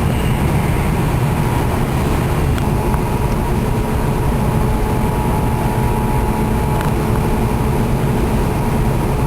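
Steady low rumble of an engine or machinery running, with a faint steady whine over it and a couple of faint clicks.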